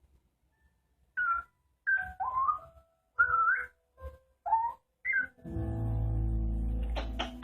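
African grey parrot whistling about five short notes that slide up and down in pitch. Music with a steady held chord comes in about five seconds in, and a rhythmic beat starts near the end.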